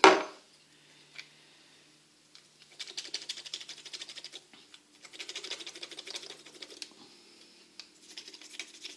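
A whole nutmeg grated on a small fine rasp grater: quick, rapid scraping strokes in three runs of a second or two each, the first starting about three seconds in.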